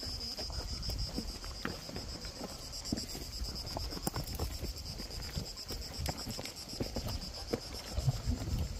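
Cicadas singing in a steady, high, finely pulsing drone, over a low rumble of wind on the microphone and a few faint clicks.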